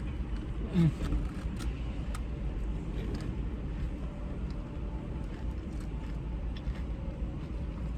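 Steady low rumble inside a car, with faint scattered crunching clicks of someone chewing crispy fried chicken and a short hummed vocal sound about a second in.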